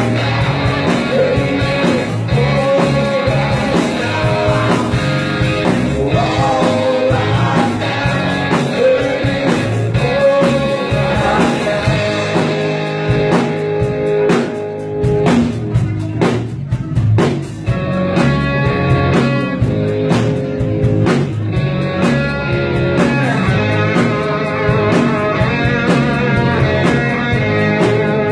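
Rock band playing: electric guitar, bass and drum kit, with a lead vocal singing through the first half before the guitar takes over.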